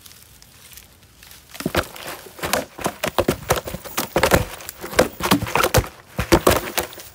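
A large, freshly netted fish thrashing while it is lifted into a plastic basin: an irregular run of thumps and slaps mixed with rustling of nylon net and dry leaves. It starts about a second and a half in and is busiest near the end.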